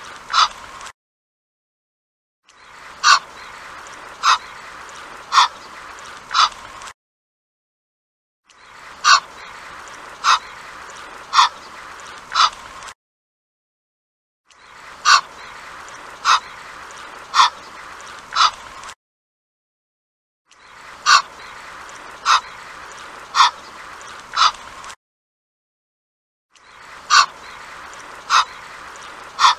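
Egyptian goose calling: short, sharp calls about a second apart, in bouts of four separated by silent gaps of about a second and a half, over a steady background noise.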